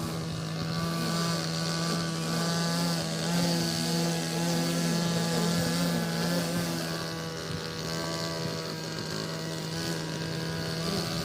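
Small petrol engine of a grass-cutting machine running steadily at working speed, holding one even pitch, with a weaker wavering tone alongside for a few seconds in the middle.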